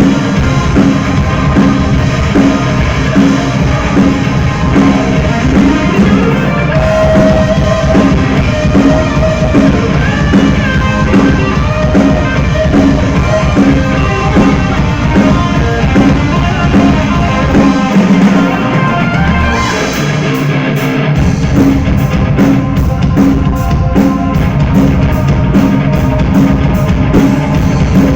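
Rock band playing loud live music at a soundcheck, with drum kit and guitar. About two-thirds through, the low end drops out briefly, then a steady hi-hat or cymbal beat of about four strokes a second comes in.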